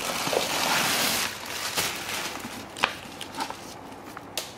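Plastic stuffing crinkling and rustling as it is pulled out of a handbag: a dense rustle for the first second or so, then lighter crackles and a sharp click near the middle.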